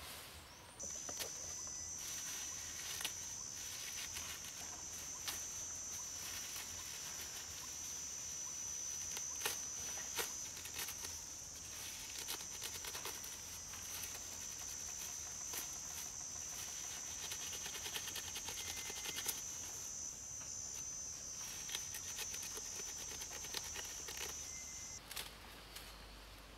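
A steady, high-pitched insect drone starts suddenly about a second in and cuts off near the end. Under it come scattered clicks and rustles of leaf thatch being handled.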